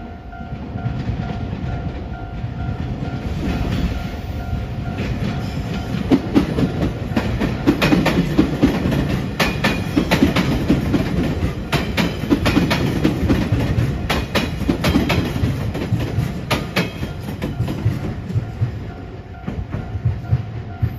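Electric train of Kyushu Railway Company passing close, a steady rumble with its wheels clicking sharply over the rail joints. Loudest through the middle, easing off near the end.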